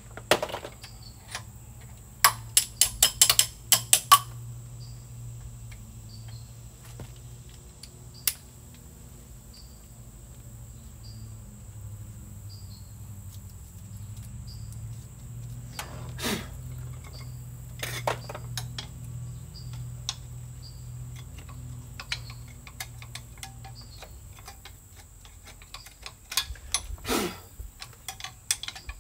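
Metal hand tools clicking and clinking against a diesel engine while its bolts are worked out: a quick run of about ten sharp clicks a couple of seconds in, then scattered single knocks. A steady low hum runs underneath.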